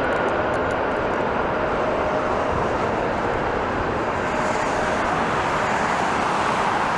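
Jet airliner engines running, a steady rushing roar with a faint high whine.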